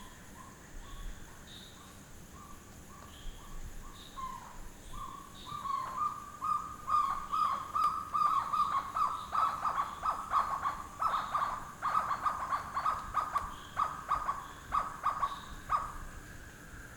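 Night ambience: insects trilling steadily, with an animal calling over them in a series of short notes. The notes start slow, quicken into a rapid, louder run for about ten seconds, then stop.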